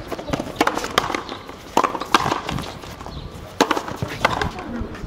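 Frontenis rally: the ball struck by racquets and hitting the court wall. It makes a string of sharp hits at uneven intervals, some coming in quick pairs.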